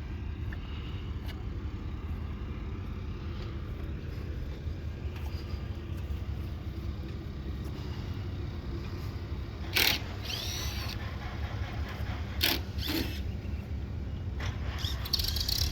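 An engine idling as a steady low rumble, with a couple of brief sharp knocks or clatters about two-thirds of the way through.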